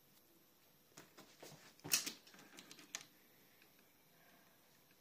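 A run of clicks and knocks from a TT:120 model railway turntable being turned by hand with a locomotive on it, the loudest knock about two seconds in.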